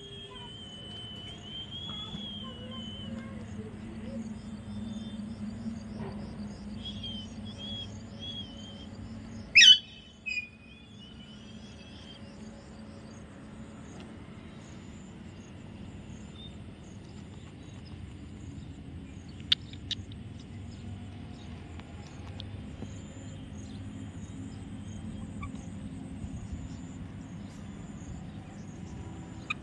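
Alexandrine parakeet calling: a wavering whistled call near the start, short calls a few seconds later, and one brief, loud, sweeping shriek about ten seconds in, followed by a softer call.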